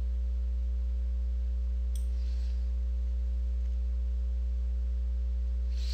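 Steady low electrical hum on the recording, with a few fainter steady tones above it and a brief soft hiss, like a breath, about two seconds in.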